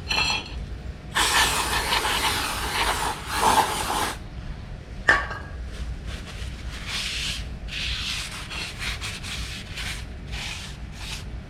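Aerosol brake cleaner hissing in one spray of about three seconds, then paper towel wiping a new slotted and cross-drilled brake rotor in a run of quick strokes, clearing off its factory anti-rust oil.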